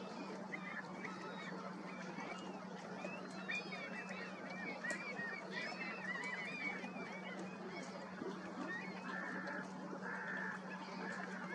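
A large flock of gulls calling, many short overlapping cries over a constant low hum, with a run of four harsher, evenly spaced calls near the end.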